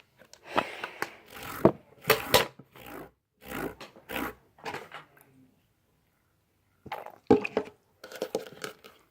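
Sticky, wet homemade slime being squished and stretched in the hands: irregular squelching and crackling pops, pausing briefly about two-thirds of the way through, then starting again.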